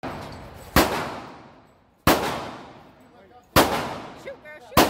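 Four handgun shots about a second and a half apart, each a sharp crack followed by a long echo in the indoor range.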